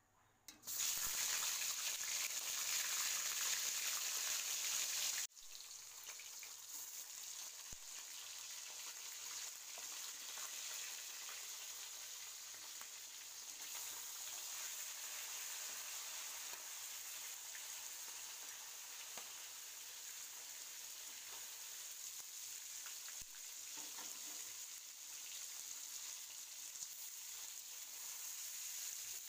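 Salt-and-turmeric-rubbed fish heads hit hot oil in a wok and set off a loud sizzle. About five seconds in it drops sharply to a steadier, quieter frying sizzle.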